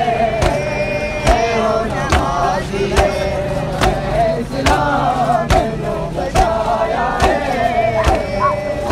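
Crowd of men chanting a noha, a mourning lament, in unison, over sharp beats just over once a second.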